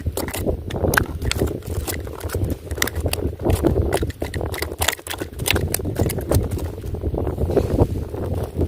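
Rapid, irregular clicks and knocks, several a second, over a steady low rumble.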